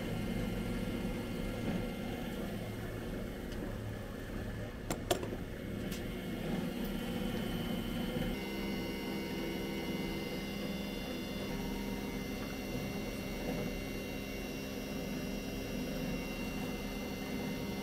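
Steady hum of a CNC milling machine and shop machinery running idle, with no cutting. A single sharp click about five seconds in, and the mix of tones in the hum changes at about eight seconds.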